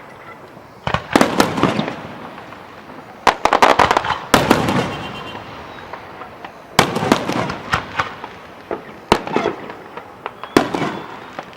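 Fireworks display: shells bursting in clusters of sharp bangs followed by crackling, several volleys with short lulls between them.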